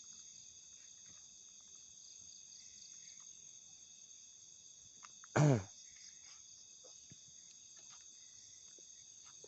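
Steady chorus of crickets and other night insects, with one short, loud call about five and a half seconds in that drops steeply in pitch.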